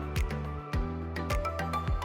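Background music: an upbeat instrumental track with a steady beat of sharp percussion hits over bass notes.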